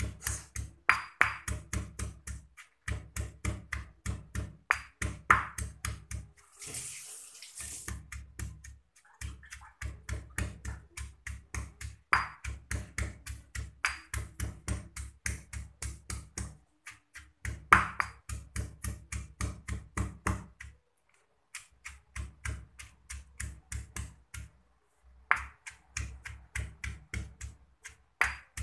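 Stone pestle pounding garlic and chilies in a stone mortar: quick, regular strikes about four a second, in runs broken by short pauses.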